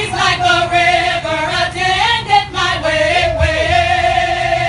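Choir of mixed men's and women's voices singing a hymn into microphones, moving through a phrase and then holding one long chord from a little past halfway.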